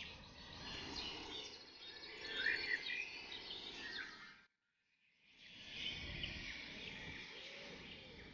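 Forest birds chirping and singing: many short, overlapping calls and trills over a steady background hiss of woodland ambience. The sound drops out to silence for under a second midway, then resumes.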